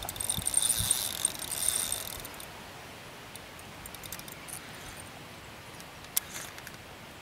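Spinning reel being cranked fast, a whirring gear sound with a high whine for about the first two seconds. After that the winding is quieter, with scattered light clicks and one sharper click about six seconds in.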